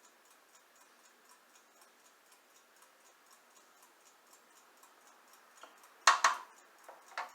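Faint steady ticking, about four ticks a second, like a clock. About six seconds in comes a brief loud noise in two quick parts, and another short one near the end.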